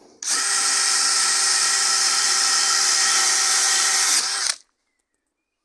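Power drill spinning a plastic wire-brush bit against weathered iroko wood, a steady whir that starts just after the beginning and cuts off abruptly after about four seconds.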